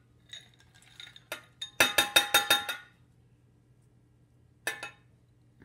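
Mixed vegetables tipped from a glass tumbler into a stainless steel pot, clinking and ringing on the metal. A few light clicks lead up to a quick run of clinks lasting about a second, and a single clink comes near the end.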